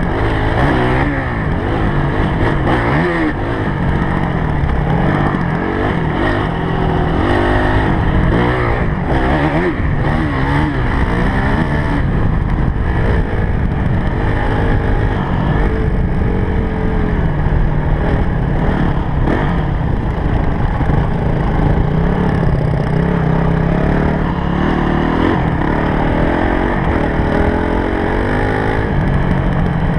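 Honda CRF250X's single-cylinder four-stroke engine revving up and down as the dirt bike is ridden hard over rough pasture, its pitch rising and falling every second or two.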